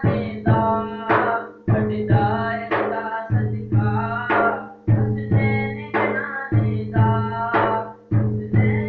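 A steel-shelled hand drum is struck by hand at about two beats a second, each stroke ringing on with a low pitched hum, under a man's solo singing voice.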